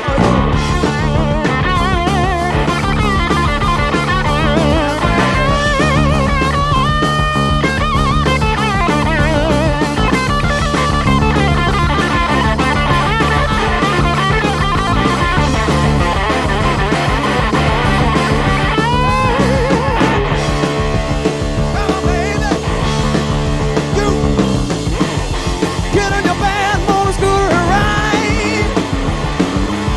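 Hard-rock band playing an instrumental section: a lead electric guitar solo with wavering, bent notes, with a quick upward slide about nineteen seconds in, over bass guitar and drum kit.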